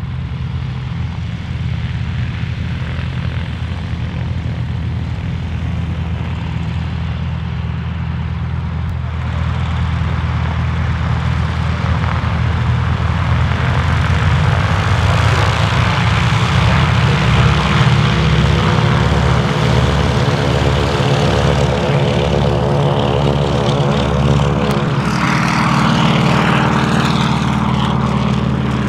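Piston engines of vintage propeller aircraft running at taxi power. The sound grows louder from about ten seconds in as the aircraft come closer, with a pulsing beat between engines, and shifts in pitch shortly before the end.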